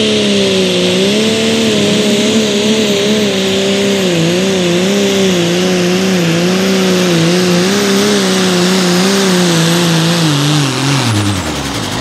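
Turbocharged diesel engine of an AGCO Allis Light Limited Super Stock pulling tractor running flat out under load as it drags the pulling sled. The engine note wavers up and down, with a high steady whine over it. About eleven seconds in, the engine note and the whine fall away sharply as the tractor comes to a stop at the end of its pull.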